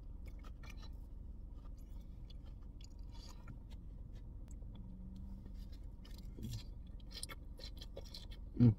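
Faint close-up chewing of a mouthful of noodles and lettuce: soft wet mouth clicks and smacks over a low steady rumble, with a brief hum from the voice near the end.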